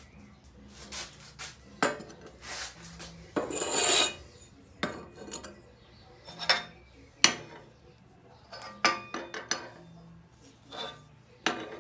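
Steel tubes being handled on a metal workbench top: a series of metallic clinks and knocks as they are set down and moved, with a longer scrape about three and a half seconds in and a sharp knock about seven seconds in.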